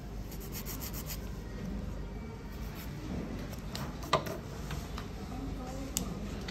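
Nail file rasping across a dip-powder nail in quick back-and-forth strokes, densest in the first second, with a sharp click about four seconds in and a lighter one near the end.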